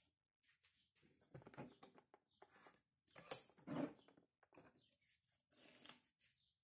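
Faint clicks, knocks and paper rustles as a lever-arm paper trimmer is handled: the cutting arm is raised and a sheet is slid into place, with the loudest knocks a little past the middle.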